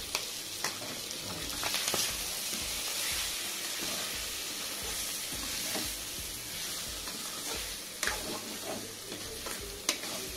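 Chicken liver pepper fry sizzling in a non-stick kadai as a steel spatula stirs it, with scattered clicks and scrapes of the spatula against the pan, the sharpest knock near the end.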